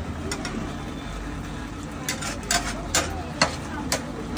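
A metal spatula stirs and mashes thick pav bhaji on a large flat griddle (tawa). It scrapes and taps against the pan in a run of sharp strokes, most of them in the second half.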